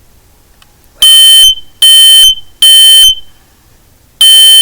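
Kidde i9040 smoke alarm sounding its test: loud, high beeps in the three-beep temporal pattern, three half-second beeps then a pause, with the next set starting near the end.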